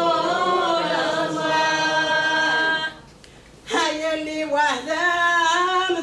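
An elderly woman singing a Kabyle religious chant unaccompanied, in long held, wavering notes. She breaks off about three seconds in for a breath, then starts another phrase.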